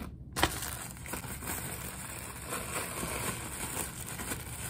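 Thin plastic takeout bags rustling and crinkling as they are handled and pulled apart, over a low steady hum.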